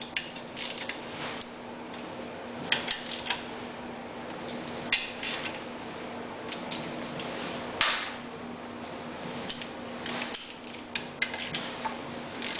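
Short, irregular bursts of metal clicking and clinking from a wrench tightening the outer bolts on a generator stator, over a faint steady hum.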